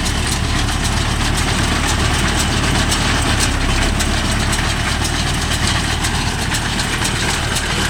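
Mahindra Yuvo Tech Plus 585 tractor's diesel engine running steadily, with a light, fast clicking over the engine hum.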